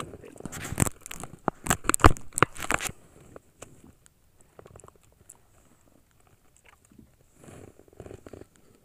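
Handling noise aboard a small fishing boat: a quick run of sharp clicks and knocks with crackling rustle for the first three seconds or so, then a few scattered faint clicks and a soft rustle near the end.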